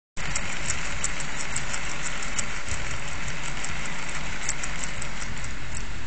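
Strong typhoon wind rushing steadily at a window, spinning the propeller of a wind-powered toy, with light rapid ticking, about six a second, that stops near the end.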